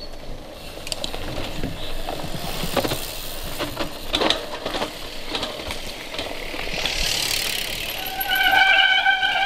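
Cross-country mountain bikes passing close on a dirt forest trail, the bikes and tyres rattling and clicking over the ground. About eight seconds in, a loud, steady, high-pitched tone starts and becomes the loudest sound.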